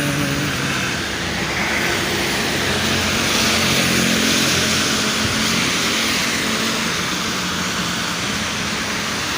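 Steady engine hum and road noise of a moving motor vehicle, swelling slightly midway.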